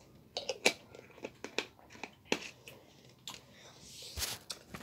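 Plastic bottle of Prime Lemon Lime sports drink being handled and opened for tasting: a faint, irregular run of sharp clicks and crinkles, with a short hiss near the end.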